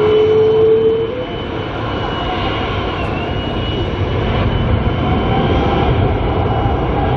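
Airbus A350's Rolls-Royce Trent XWB jet engines at takeoff thrust during the takeoff roll: a steady rumble with a high whine held over it. A lower tone climbs slightly and stops about a second in.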